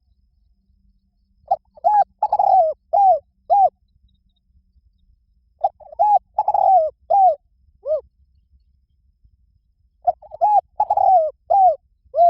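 Spotted dove cooing: three phrases of about five arched, mellow coos each, with pauses of a couple of seconds between phrases.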